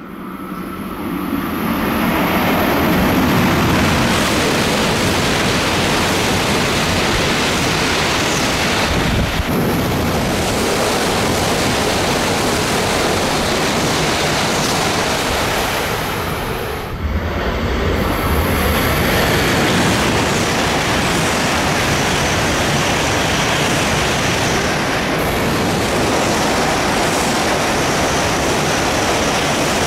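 Shinkansen bullet trains passing through a station at high speed without stopping, one of them a coupled E5 and E6 set: a loud, steady rush of air and rolling noise. It swells in over the first couple of seconds and dips briefly twice, about a third of the way in and again just past halfway.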